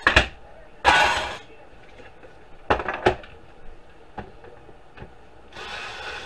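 Sheet-metal DVD drive parts clanking and clattering on a wooden workbench: a clank at the start, a longer scraping clatter about a second in, and a couple of knocks near three seconds. Near the end a cordless screwdriver starts whirring as it backs out a drive's cover screw.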